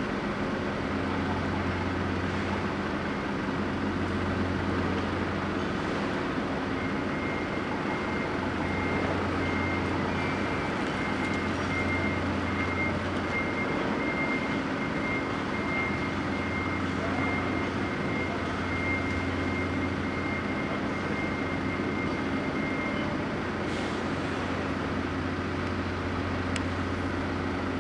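Low steady drone of the ferry Eastern Dream's diesel engines, fading briefly a few times, with a thin steady high whine from about seven seconds in until about twenty-three seconds.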